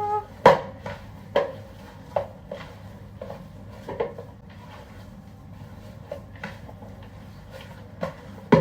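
Kitchen handling sounds as almond filling is gathered together in a bowl: a few separate sharp knocks of the bowl and utensils, with quieter handling between them.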